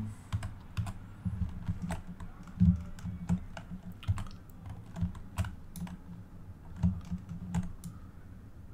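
Irregular clicks and taps from a computer mouse and keyboard during image editing, each with a dull low thump, about one or two a second; the loudest comes about two and a half seconds in.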